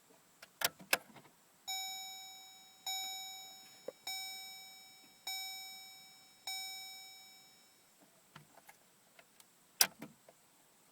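Chevy Colorado's dashboard warning chime dinging five times, evenly about a second apart, each ding fading out, between a couple of sharp clicks at the start and more small clicks with one sharp click near the end, like a key and switches being handled.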